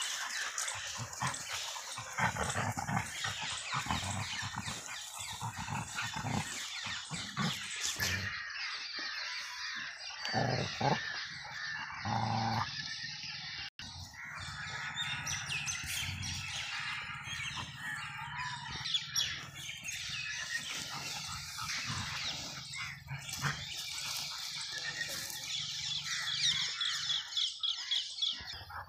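A Rottweiler making low, drawn-out growling sounds as it paws and scrapes at a rock in loose dirt, with birds chirping in the background.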